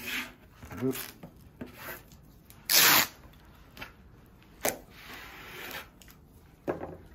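Blue masking tape being worked onto a windsurf board: a loud rip as a length is pulled off the roll about three seconds in, then a shorter sharp tear and softer rubbing as it is torn off and pressed down.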